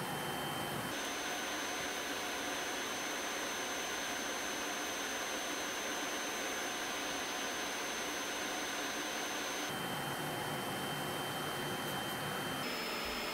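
Electric nail drill running with a steady high whine over a hiss while grinding down a thick, fungus-infected toenail. The whine drops in pitch about ten seconds in and shifts up again near the end.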